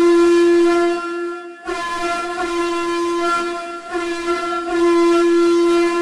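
Truck air horn sound effect, one steady pitched blast that dips and breaks off briefly about a second and a half in, then sounds again and holds with some swelling, processed with a "radio" effect.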